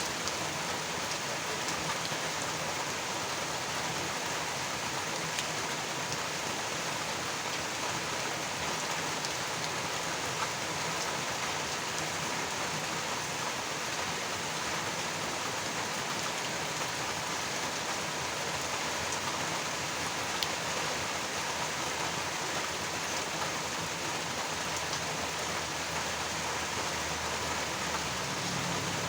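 Steady rain falling, an even hiss of rain on surfaces with a few sharper drop ticks now and then.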